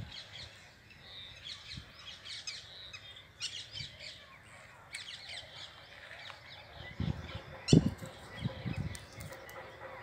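Birds chirping in short, high twitters on and off throughout. A few soft low thumps come between about seven and nine seconds in.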